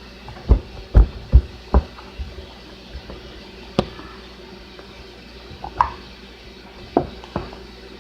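Foam slime being squeezed and poked, giving sharp wet pops: four in quick succession in the first two seconds, then a few more spaced out.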